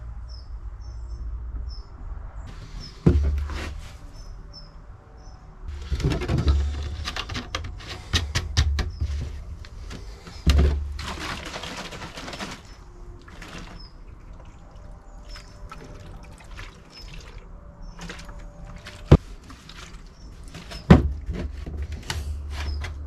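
Plastic fuel-mixing bottle and jerry can being handled on a workbench: a string of clunks and knocks, with fuel pouring for about two seconds around the middle. Faint bird chirps sound throughout.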